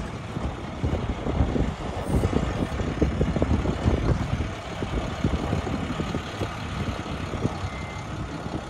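International vacuum truck's diesel engine running as the truck drives slowly past, a low rumbling exhaust note.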